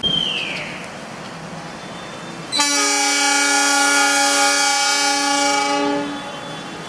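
Train horn sounding one long, steady blast of about three and a half seconds, starting a little over two seconds in. It is preceded by a short falling squeal at the very start.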